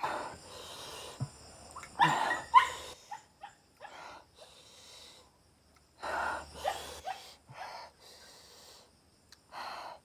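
A man breathing hard in and out through his open mouth, in several loud breathy hisses and pants, the usual reaction to the burn of a red king chilli (bhut jolokia). The bursts come about every two to four seconds, the loudest about two seconds in.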